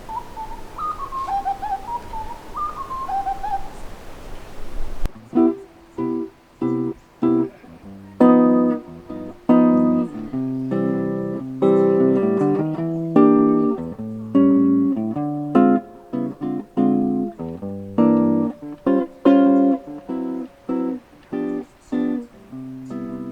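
For about the first five seconds, a bird sings a few short phrases of stepping whistled notes over a steady hiss. Then the sound cuts sharply to an acoustic guitar playing a plucked instrumental passage.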